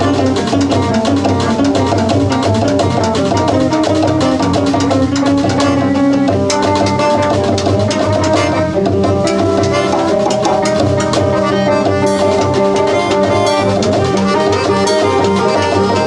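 Small band playing live: a drum kit and hand percussion keep up a busy, even rhythm under held melodic notes, in an upbeat Latin-flavoured groove.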